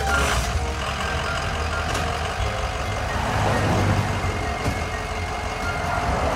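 Truck engine sound effect running steadily, a low hum under a noisy hiss.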